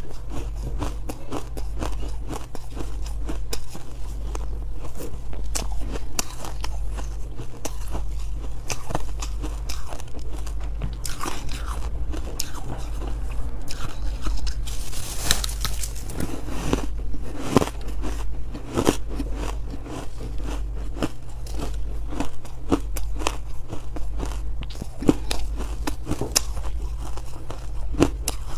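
Close-up crunching and chewing as hard freezer ice chunks coated in buckwheat are bitten and crushed between the teeth, with a dense run of cracks and crackles. The loudest burst of crunching comes about halfway through, over a steady low hum.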